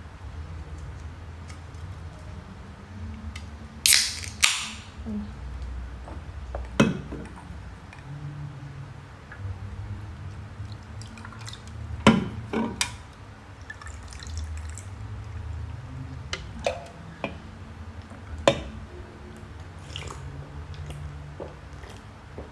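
A person drinking water from a glass, with swallowing and liquid sounds and a few sharp clicks and knocks, the loudest a pair about four seconds in.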